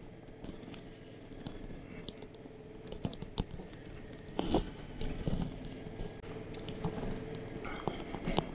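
Motorcycle rolling along a gravel track: the tyres crunch and pop over loose stones, giving irregular knocks, the loudest about halfway, over a faint steady engine hum.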